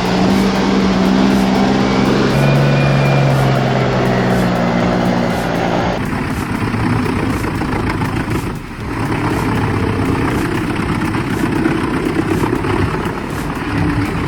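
Heavy truck engine running with a steady droning note that steps down in pitch about two seconds in. About six seconds in it cuts abruptly to a rougher, noisier machine sound.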